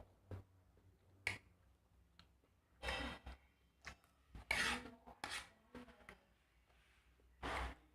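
Close-up eating sounds of swamp cabbage and rice: short bursts of crunching and chewing with wet mouth clicks, coming several times with pauses between.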